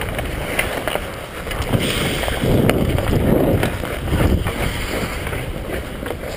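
Hockey skate blades scraping and gliding on rink ice, with wind rumbling on the microphone. A few sharp clicks of a stick blade on the puck are scattered through it.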